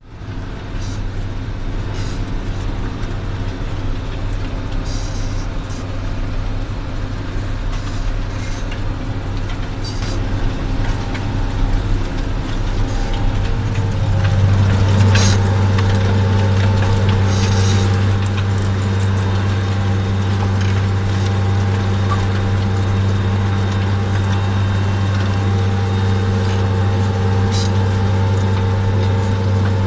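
Tractor diesel engine running steadily under load while pulling a stubble cultivator, heard from inside the cab. The engine drone gets louder about halfway through, with a few light clicks and rattles.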